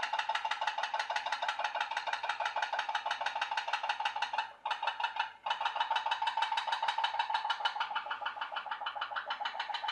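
A homemade pop-pop boat's tea-light-heated steam boiler running with a rapid, even putt-putt of pops. The pops break off briefly about halfway through, then pick up again.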